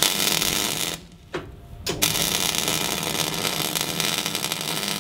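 Gas-shielded MIG welder arc crackling on steel: a burst of about a second, a second-long break, then a longer steady run of crackle.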